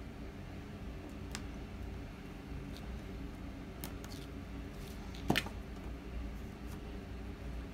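Weeding hook picking at and peeling away scraps of heat transfer vinyl from its carrier sheet: scattered small ticks and crackles, with one sharper click a little past the halfway mark.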